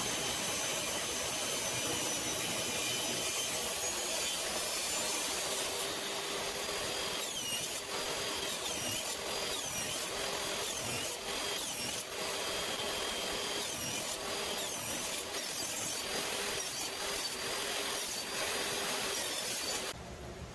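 Jobsite table saw running and cutting bridle-joint slots in a piece held on end against the fence, with repeated short dips in the blade's whine in the middle stretch as the wood is fed through. It drops off just before the end.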